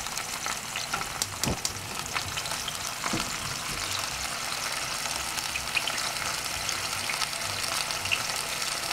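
Whole chicken browning in melted butter in a stainless steel pot, sizzling steadily with fine crackles. A couple of knocks come in the first few seconds.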